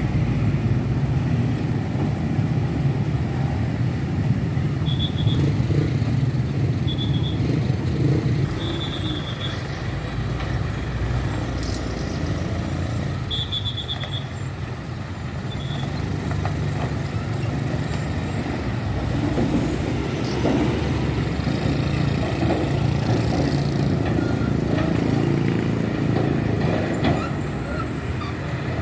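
Heavy road traffic of trucks and buses passing, their diesel engines running in a continuous rumble that swells and eases. A few short high beeps sound between about five and sixteen seconds in.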